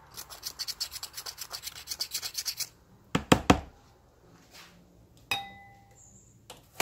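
A blade scraping fast across hardened carbon deposits on a direct-injection engine's intake valve, about ten short strokes a second; the carbon is still hard after its soak. The scraping stops after about two and a half seconds, followed by a few knocks and a single metallic clink that rings briefly.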